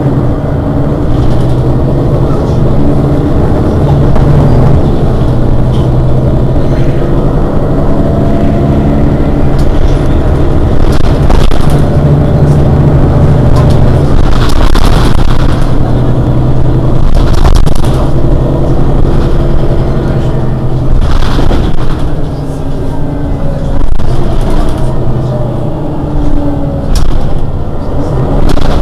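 Mercedes-Benz Citaro city bus's rear-mounted engine idling steadily while the bus stands still, with several short hisses over it in the second half.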